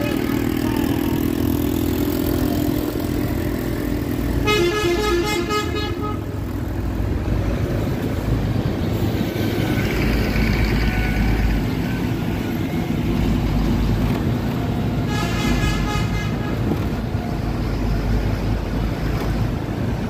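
Street traffic with a steady low rumble of engines and road noise; a vehicle horn blasts twice, about a second and a half each, once about four seconds in and again about fifteen seconds in.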